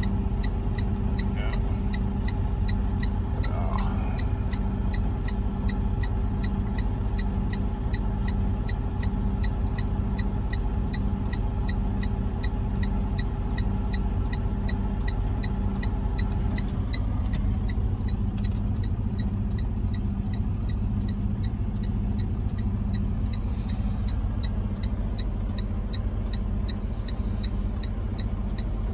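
Semi truck heard from inside the cab while driving: a steady engine and road drone. A light ticking runs throughout, about twice a second. A steady tone in the drone drops away about seventeen seconds in, around a couple of brief clicks.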